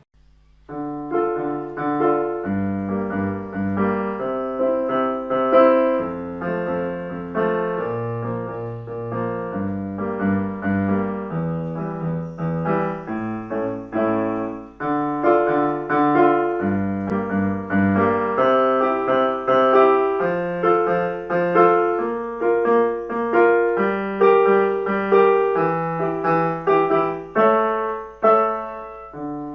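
Piano music: slow sustained chords and a melody played on a keyboard, starting about half a second in.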